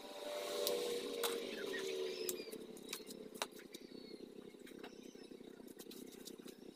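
Scattered small sharp clicks and snips of hand tools and wire working on a bonsai trunk, over a steady low hum in the background.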